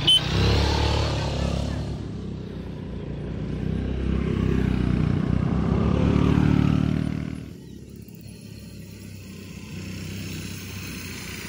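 Motorcycle engine running under throttle, its note growing louder to a peak, then dropping away sharply about seven and a half seconds in to a quieter, steady low running. Two sharp knocks right at the start.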